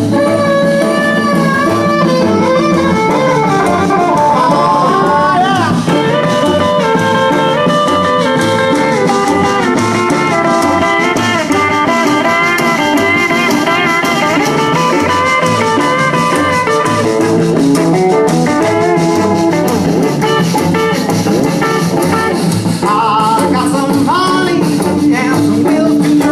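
A band playing through a sound check, with guitar and a singing voice, continuous and loud.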